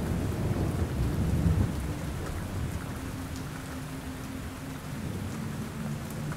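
Recorded rainstorm ambience: steady rain falling, with a low rumble of thunder that dies away about two seconds in.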